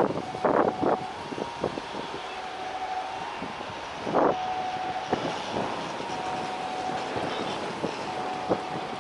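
Roadside traffic noise and wind on the microphone under a steady whining tone, with short loud bursts in the first second and again about four seconds in.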